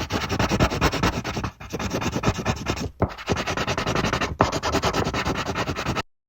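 Pencil shading on paper: quick back-and-forth scratchy strokes in a fast, even rhythm, broken by three short pauses as the pencil lifts, then cutting off suddenly near the end.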